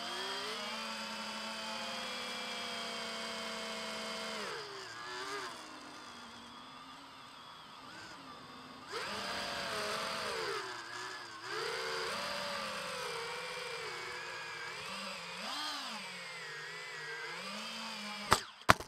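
FPV quadcopter's brushless motors and propellers whining, recorded by its onboard camera, the pitch rising and falling with throttle. Near the end come two sharp knocks as it touches down on the asphalt.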